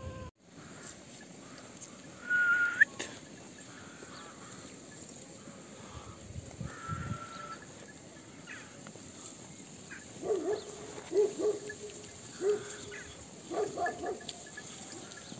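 Sheep and lambs bleating at a hay pile: a loud, high call about two seconds in, another near seven seconds, then a quick run of short bleats over the last few seconds.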